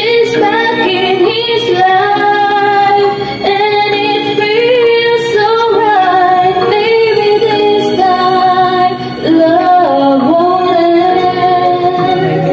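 Female voice singing a slow love ballad into a microphone over a karaoke backing track, holding long notes with a wavering vibrato.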